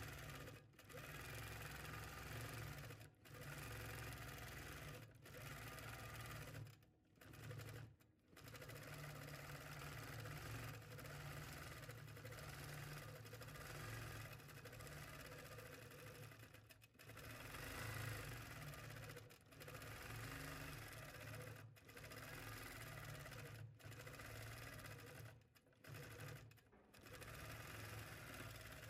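Longarm quilting machine running steadily as it stitches across a quilt, its sound dropping out briefly every few seconds.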